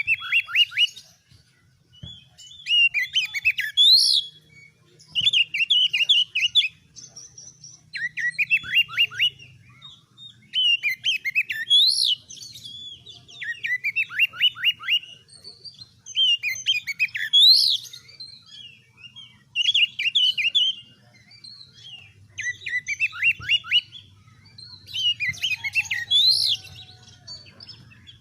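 Oriental magpie-robin (kacer) singing vigorously: loud phrases about every two seconds, each a rapid run of downward-sliding whistled notes, some topped by a high note that rises and falls.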